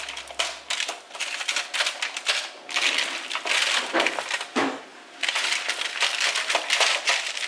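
Aluminium foil lining a baking tray crinkling and rustling as vegetables are turned over on it by hand: a dense run of small crackles, with a short lull about five seconds in.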